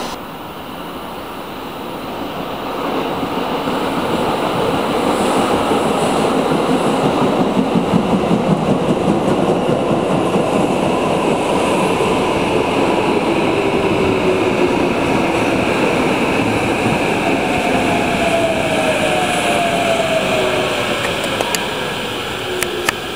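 Electric commuter train pulling into a station. Its rumble and wheel clatter build as it comes in, then a whine falls steadily in pitch as it brakes toward a stop, with a few sharp clicks near the end.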